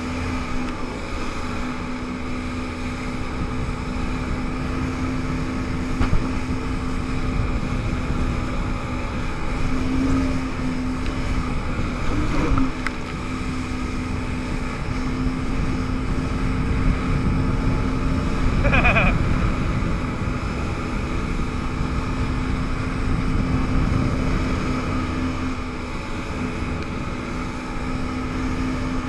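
Personal watercraft (jet ski) engine running steadily at speed, with the rush of wind and water spray on the microphone.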